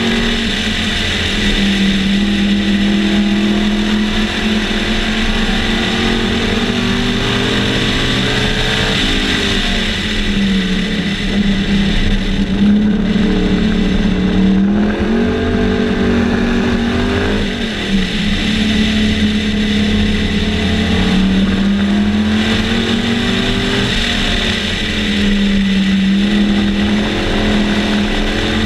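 Sunbeam Tiger race car's Ford V8 engine at racing revs, heard from inside the open car. The revs drop and climb back up several times as it is driven hard around the circuit.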